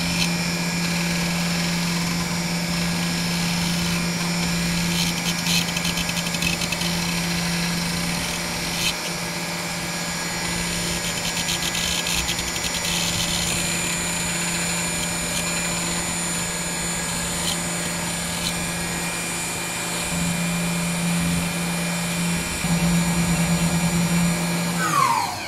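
Tormach 1100MX CNC mill spindle running steadily while an end mill cuts aluminium under coolant spray: a constant hum and whine with scattered crackles. Near the end the whine falls in pitch and stops as the spindle spins down.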